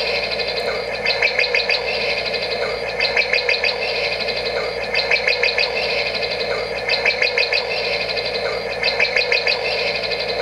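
Sonnet "Soothing Sound" clock radio playing its forest setting through its small built-in speaker. Short bursts of rapid bird chirps come back about every two seconds over a steady hiss.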